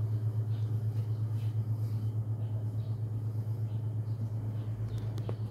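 Mitsubishi Electric four-way ceiling cassette air conditioner running: a steady low hum with a fast, even flutter.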